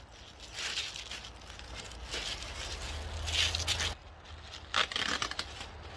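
Thin clear plastic bag rustling and crinkling in irregular bursts as it is pulled up and off a large telescope tube.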